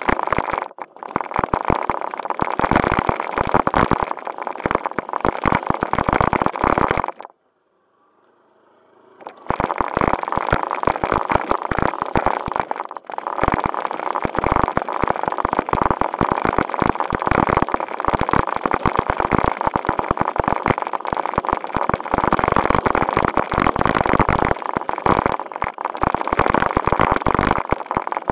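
A JJRC Q76 4WD RC stunt car, heard from its own onboard camera, running over gravel: a faint steady motor whine under dense crackling and rattling from the tyres on the stones and a plastic bag flapping in the wind. The sound drops almost to silence for about two seconds a quarter of the way in, then picks up again.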